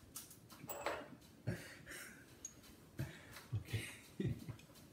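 Faint, scattered clicks and knocks from a ratchet wrench being handled while bolting a barn-door track, at irregular spacing with no steady ratcheting.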